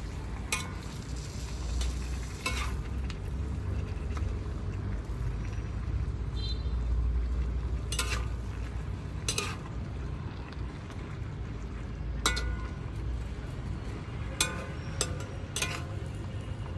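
Leafy greens and minced pork sizzling in a wok while being stir-fried, over a steady low rumble. A metal spatula scrapes the wok and strikes it with sharp clinks now and then.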